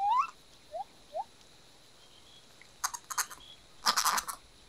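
Short rising animal calls: one right at the start and two fainter ones about a second in. A quiet stretch follows, then two clusters of sharp clicks and rustles, about three seconds in and again about four seconds in, the second the louder.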